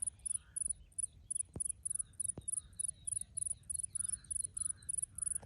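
Singing insect in a field: a high-pitched pulsed buzz repeating evenly about three to four times a second, with faint bird chirps behind and two sharp clicks in the middle.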